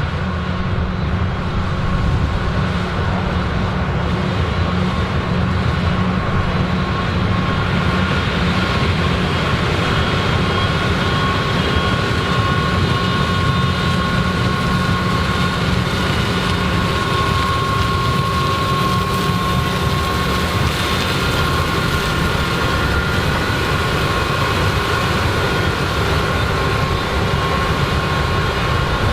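Combine harvesters running while harvesting corn: a steady heavy engine drone with a steady high whine on top.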